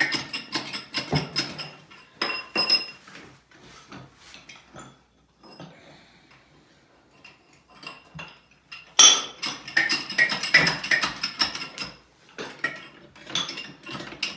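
Steel shim plates clinking and clanking against each other as they are stacked on a foundation pier to raise the foundation: rapid ringing metallic knocks in clusters, with a quieter stretch in the middle.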